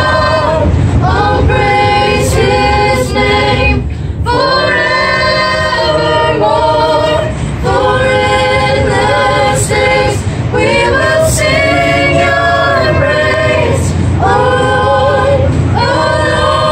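A small group of young, mostly female voices singing a cappella together in phrases with short breaks between, over the steady low rumble of a moving subway car.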